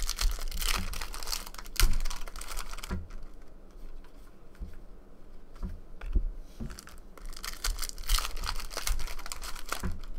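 Foil wrapper of a Topps Platinum football trading card pack crinkling and tearing as the pack is opened, in a burst of crackling for the first three seconds and again about eight seconds in, with a few soft knocks in between.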